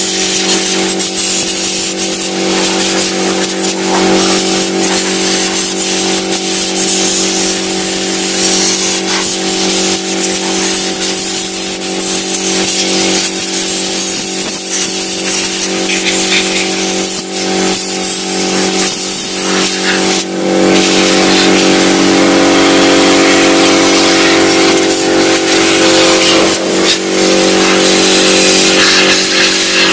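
Air compressor running with a steady hum while compressed air hisses in varying blasts, blowing dust out of a desktop computer's system unit; the sound gets louder about twenty seconds in.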